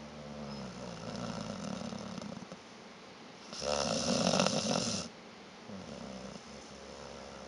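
Sleeping Labrador snoring: softer snoring breaths, then one much louder snore lasting about a second and a half, a little past the middle.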